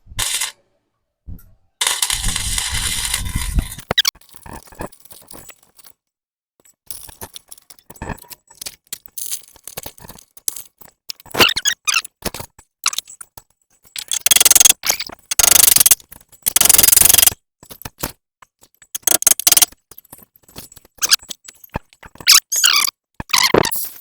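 MIG welder laying plug and tack welds on a car frame bracket, running in separate crackling bursts of one to two seconds with pauses between them.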